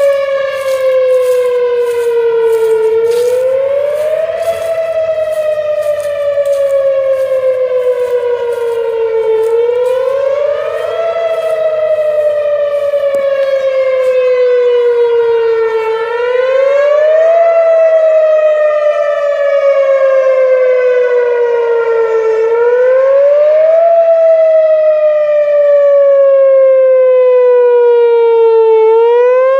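Tornado warning siren sounding in a repeating cycle: its pitch climbs quickly over about a second and then slides slowly down for about five seconds, over and over, loud throughout.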